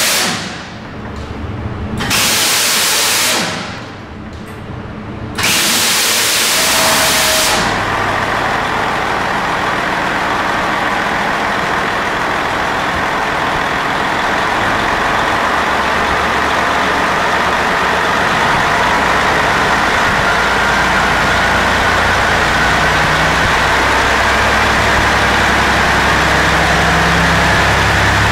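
Bursts of loud hissing air over the first several seconds, then a diesel dyno engine running steadily, with a low hum and a faint high whine that rises slightly.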